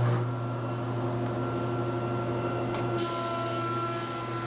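Jet JP-208HH 20-inch planer running with a steady hum and whine. About three seconds in, a hiss joins as a board feeds into its helical cutterhead and is planed.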